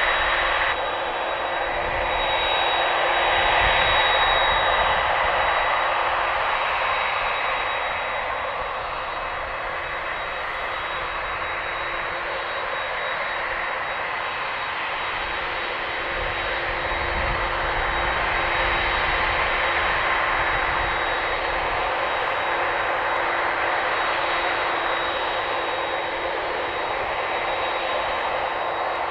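Boeing 767 airliner's twin turbofan engines running at taxi power: a steady jet hiss with a high whine over it, swelling slightly a few seconds in and again about two-thirds through.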